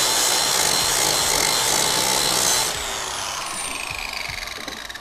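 Angle grinder with a flap disc grinding an angle into a whiskey-barrel stave board, a loud steady grinding with a whine. A little under three seconds in it comes off the wood and winds down, its whine falling as the disc slows.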